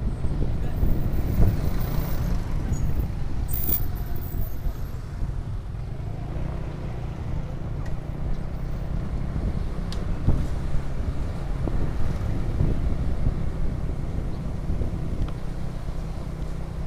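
Road traffic: a steady low engine rumble with road noise, broken twice in the first few seconds by a brief high hiss.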